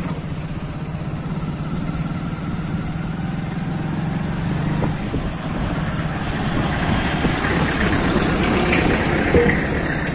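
Diesel tractor engine idling with a steady low chug, growing a little louder in the second half.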